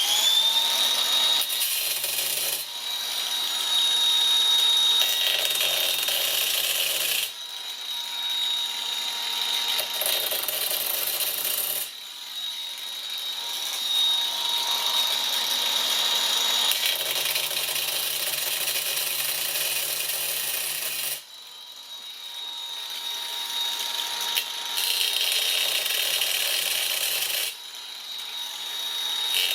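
Grinder motor spinning up, then running with a steady high whine while its bit grinds into a quartz stone to engrave letters. The grinding noise swells and drops in repeated stretches of a few seconds each as the strokes of the letters are cut.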